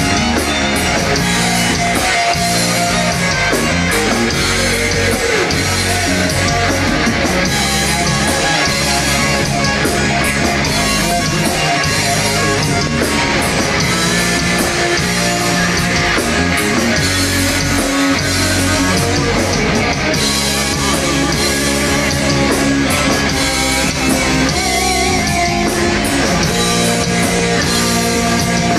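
Live rock band playing loud and steady: electric guitars, bass and drum kit.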